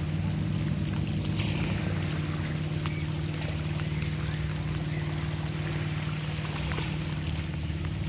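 Steady rain hissing, with scattered drop ticks, under an even low motor drone that holds one pitch throughout.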